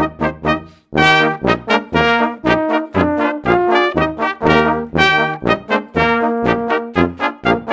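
Brass sextet of two trumpets, two alto horns, a euphonium and a tuba playing a German-band polka in short, detached notes, with tuba bass notes alternating with off-beat chords. All parts stop together for a moment just before a second in, then carry on.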